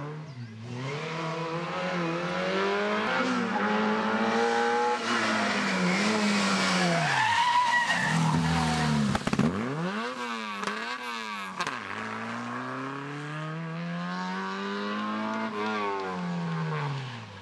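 Small rally hatchback's engine revving hard as it approaches, falling in pitch as it slows for the hairpin, with a brief tyre squeal as it passes close. It then revs up again as it accelerates away and fades near the end.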